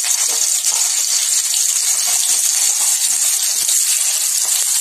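Chopped onion frying in hot mustard oil in a kadai: a steady, loud sizzle.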